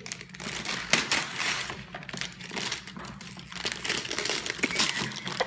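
Shiny metallic gift-wrapping paper crinkling and crackling irregularly as a present is torn open by hand.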